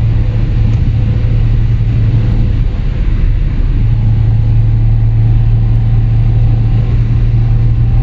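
Steady low exhaust drone of a Lada Vesta 1.8 fitted with a CBD aftermarket exhaust on a 51 mm pipe, heard inside the cabin at a highway cruise of about 120 km/h. It is a resonant hum through the car's body, easing briefly about three seconds in.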